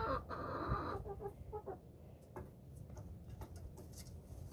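Chickens clucking: a drawn-out call in the first second, then several short clucks, followed by a few faint taps.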